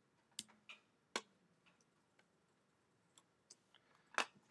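Faint, sharp clicks of a computer mouse and keyboard: three near the start, a few fainter ticks later, and a louder click near the end.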